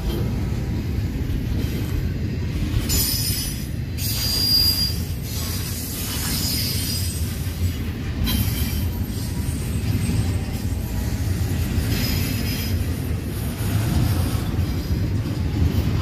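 Double-stack intermodal container train rolling past: a steady rumble of loaded well cars on the rails, with brief high wheel squeals now and then.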